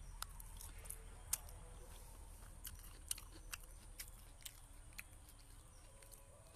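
A person chewing food, faint, with small scattered clicks of the mouth.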